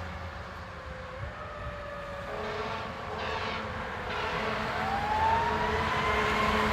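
Fire company house siren sounding for a call: a slowly falling wail early on, then a slow rise in pitch that begins about two-thirds of the way in and keeps climbing.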